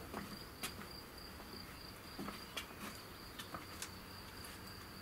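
Cricket trilling in one steady high-pitched note, with a few faint scattered clicks.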